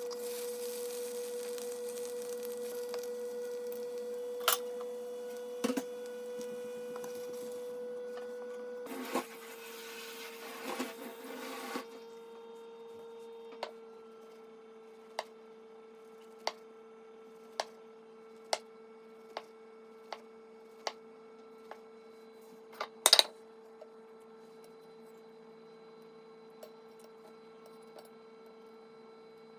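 Light frying sizzle from egg in a pan over a steady high electrical hum. The sizzle stops about twelve seconds in, leaving the hum. It is followed by a run of light ticks about once a second and one louder clatter.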